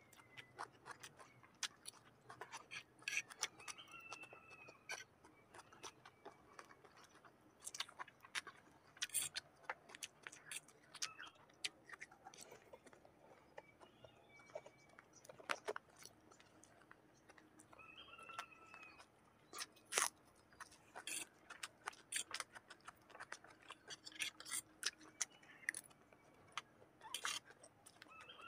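Close-miked eating: chewing and slurping rice noodles, with many sharp clicks of a fork and spoon against plates. A few short high tones come in at several points.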